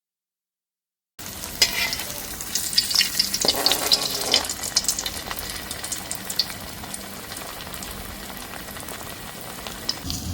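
Salted fish frying in hot oil, starting after about a second of silence: a dense sizzle with sharp spitting crackles for the first few seconds, settling into a steadier, quieter sizzle.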